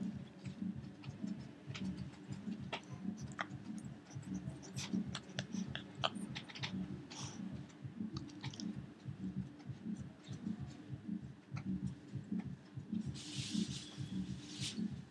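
Pekingese dog chewing a rawhide treat: a steady rhythmic gnawing, about three or four chews a second, with scattered sharp clicks of teeth on the hide. A brief hiss comes near the end.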